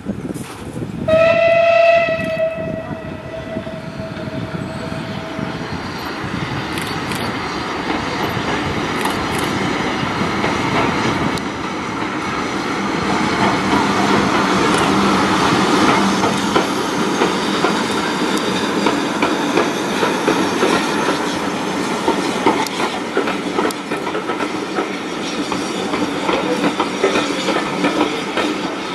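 Steam whistle of LNER J72 tank engine No. 69023 sounding about a second in, one note, loud briefly and then trailing away over several seconds. Then the locomotive working past with its train, exhaust beats and carriage wheels clattering over the rail joints, loudest about halfway through.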